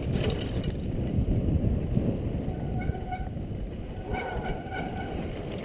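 Downhill mountain bike rattling and jolting over a rough dirt trail, with tyre noise and wind rush on a helmet-mounted camera. Twice, about three seconds in and again just past four seconds, a short pitched squeal sounds as the rider brakes, typical of disc brakes.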